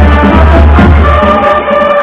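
Loud background music with a heavy, evenly pulsing bass beat and sustained melodic notes; the bass drops out about three-quarters of the way through.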